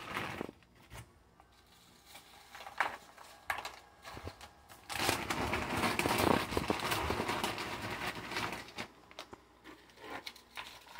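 Crinkling of a large plastic chip bag and tortilla chips rustling as a hand pulls them out and drops them onto plates. It is quiet at first, with a few scattered crackles, then a dense stretch of crinkling in the middle, and sparse crackles near the end.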